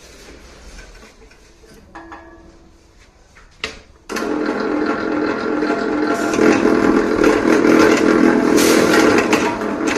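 A few faint clicks and a sharp knock, then about four seconds in an electric wire stripping machine starts and runs steadily with a humming motor, slitting the insulation off a three-core aluminium cable with its cutter set a little deeper.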